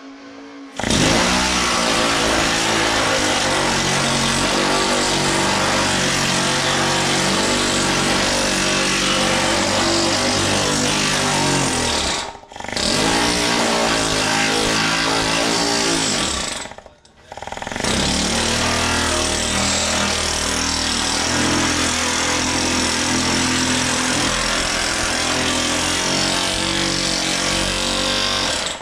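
Pneumatic planishing hammer running, rapidly hammering a welded steel dash panel to smooth the welds and bring its crown back. It starts about a second in, cuts out and spins back up twice in the middle, and stops at the end.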